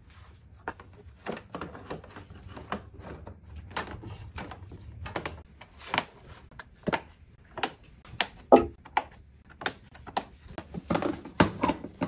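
Irregular light clicks and knocks of hand tools and small parts being handled during motorcycle assembly work.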